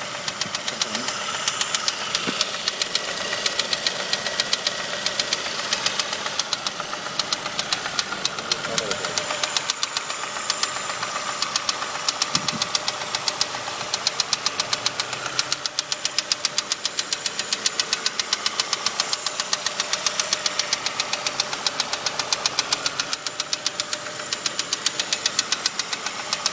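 Saab 2.0t turbocharged four-cylinder engine running with a steady, rhythmic knocking that keeps an even beat. It is the knock the owner says appears once the engine has warmed up, cause unknown.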